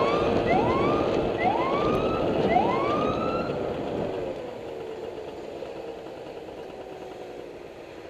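A vehicle siren giving short rising whoops, the later ones longer, over the rumble of heavy vehicle engines; the siren stops about three and a half seconds in and the engine noise fades away.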